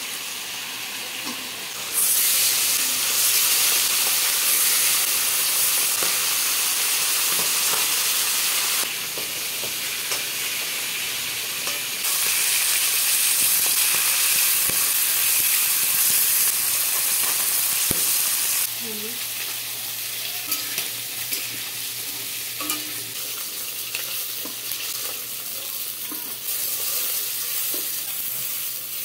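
Whole tilapia frying in hot oil in a kadai: a steady sizzle that swells louder twice for several seconds at a time, with small clicks and scrapes of the spatula turning the fish in the pan.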